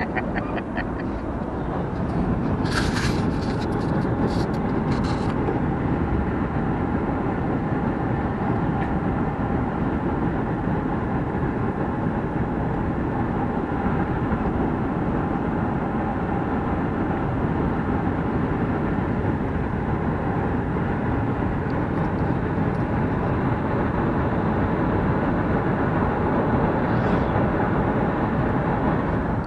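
Steady road noise inside a pickup truck's cabin at highway speed: tyres on asphalt and engine drone, with a few brief hisses about three seconds in.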